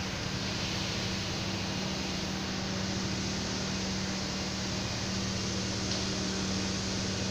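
Steady hum and air noise from running equipment in an electrical panel room: a constant low drone over an even hiss, with no change or break.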